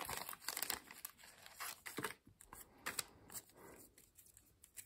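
Faint crinkling and rustling of a clear plastic bag as game cards and cardboard tokens are handled and pulled out of it, with scattered light clicks.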